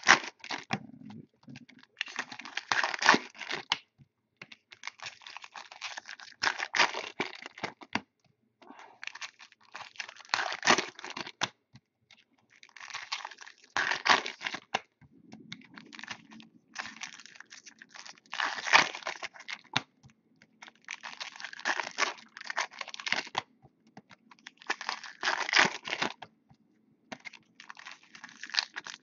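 Foil trading-card pack wrappers being torn open one after another, a crinkly ripping burst roughly every three seconds, about nine in all. A faint low hum comes in about halfway through.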